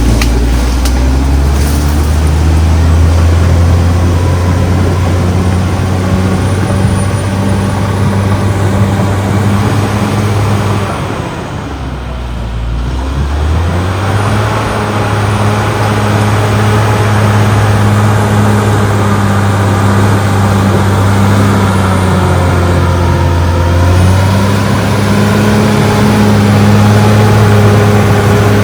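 CAT D6R XL bulldozer's diesel engine running steadily under load, its level and pitch dropping for a couple of seconds about twelve seconds in before rising again.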